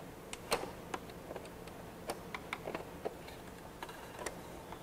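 Plastic snap clips on a 2003 Chevy Silverado instrument cluster housing being pried loose with a small screwdriver: a string of small, irregular clicks and ticks, the sharpest about half a second in.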